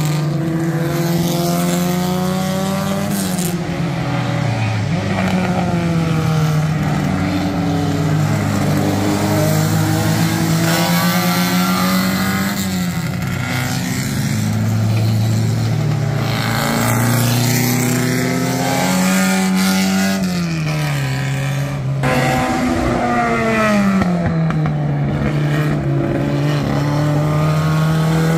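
Small-displacement vintage racing car engines, under two litres, running hard at race pace. The engine note repeatedly climbs and then drops in pitch, and at times two engines overlap.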